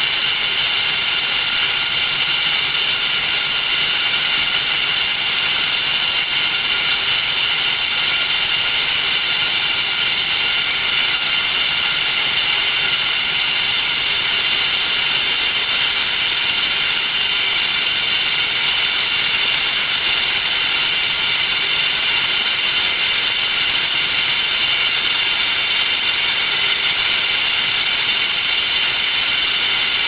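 Several mechanical wind-up alarm bells (Vintage Vanguard and Emdeko) ringing together while submerged in water, their fast strikes blurred into a steady, unbroken jangle of many high tones.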